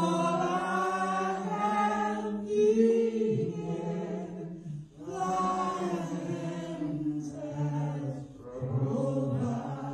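A woman singing into a handheld microphone in long, drawn-out phrases, with three short breaths between them.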